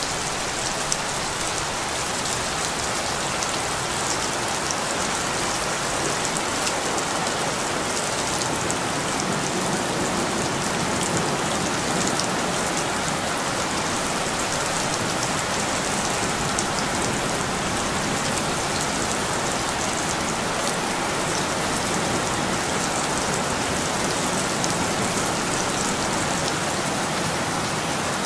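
Steady rain falling: an even hiss with many separate drop hits ticking through it.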